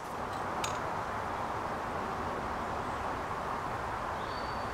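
Steady outdoor background hiss, with two faint clicks about half a second in and a short high whistle near the end.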